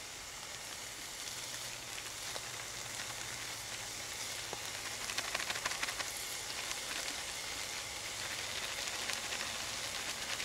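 Garlic frying in a hot cast iron skillet on a wood-burning camp stove: a steady sizzle that grows louder, with dense fine crackling, about four to six seconds in as more garlic is shaken into the pan.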